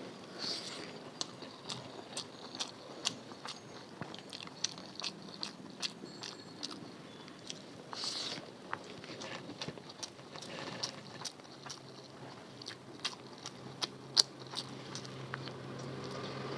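Close-miked eating: a person chewing and biting food with many sharp wet mouth clicks, and a louder crunching swell twice, near the start and about halfway.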